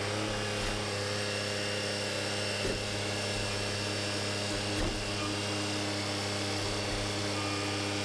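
Tractor engine idling steadily just after being started, an even running sound with a couple of faint knocks in the middle.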